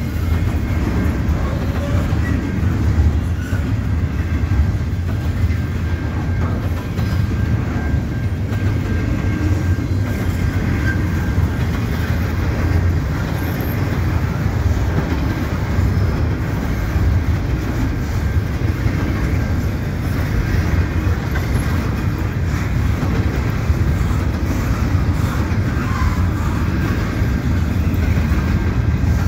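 Double-stack intermodal well cars rolling slowly past, a steady low rumble with wheel clatter over the rail joints and crossing trackwork.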